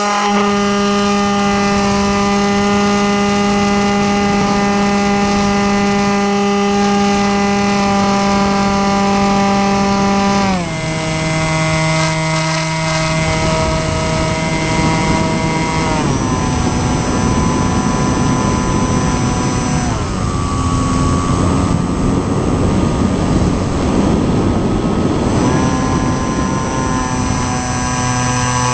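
Bixler 2 RC plane's electric motor and pusher propeller running with a steady whine, its pitch stepping down as the throttle is eased about ten seconds in and again around sixteen seconds, then climbing back about twenty-five seconds in. A rough hiss of rushing air grows underneath in the second half.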